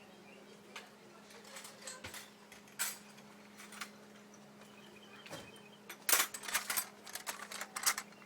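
Metal hand tools clinking and rattling as someone rummages for a wrench: a few scattered clicks, then a busier clatter from about six seconds in, over a faint steady hum.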